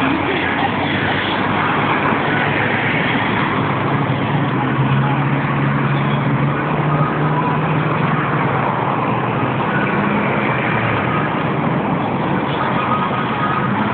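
Road traffic at a busy intersection: vehicles passing and idling at the lights. A low, steady engine drone from a nearby vehicle stands out through the middle.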